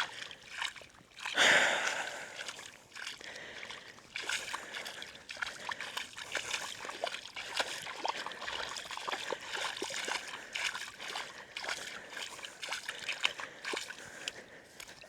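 Shallow tide-pool water splashing under bare feet wading through it: many small irregular splashes and drips, with a louder splash about a second and a half in.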